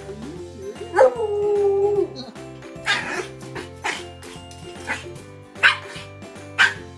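A dog gives one drawn-out whining howl about a second in, then a run of short, sharp barks about once a second, over light background music.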